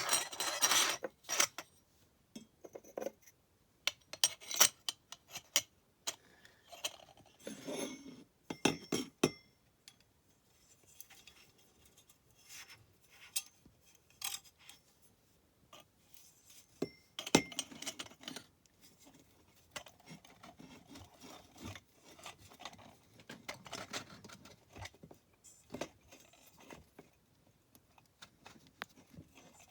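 Metal parts of a motorcycle exhaust silencer and its adapter clinking, knocking and scraping against each other as they are handled and fitted, in irregular bursts, loudest right at the start and again about 17 seconds in.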